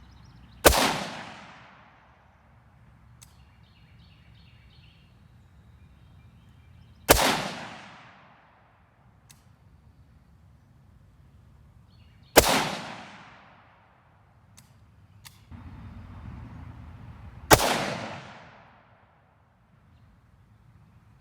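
Four single rifle shots of 5.45x39 Wolf Military Classic 55 gr hollow-point, about five to six seconds apart, each followed by an echo that dies away over a second or so.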